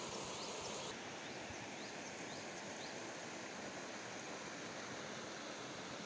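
Steady rush of stream water pouring down a rock slab into a pool, a little softer from about a second in. A few short rising chirps sound high above it in the first two seconds.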